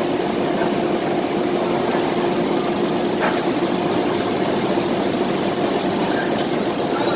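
An engine or heavy machine running steadily with a constant hum, with a single short knock about three seconds in.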